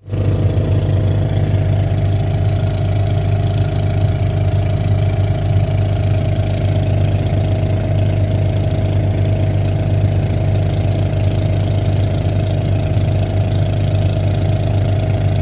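Diesel engine of an earthmoving machine running steadily with a deep, even hum and no revving.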